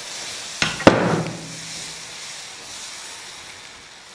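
Dosa batter sizzling as it is poured onto a hot griddle (tawa) and spread with a ladle, the hiss slowly fading. Two sharp knocks of the ladle on the pan just before one second in, the second the louder.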